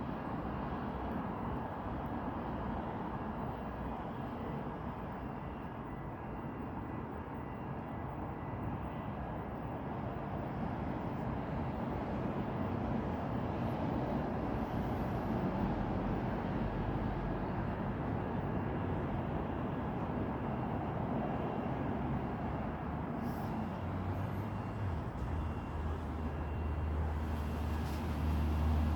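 Street and vehicle noise with a fire alarm sounding faintly as a steady high tone underneath. A heavy engine's low rumble comes in about 24 seconds in and becomes the loudest sound near the end.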